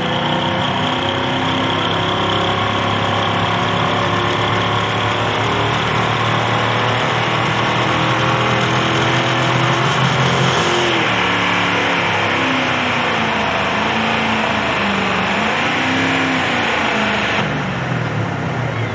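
A Pro Stock pulling tractor's diesel engine running hard at steady high revs with a high whine over it. From about halfway through, the revs rise and fall in waves.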